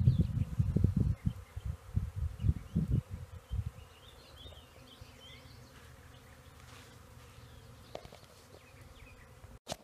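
Honeybees buzzing as they fly in and out of a swarm box holding a newly hived swarm. The sound is loud and uneven for the first few seconds, then drops to a faint, steady hum.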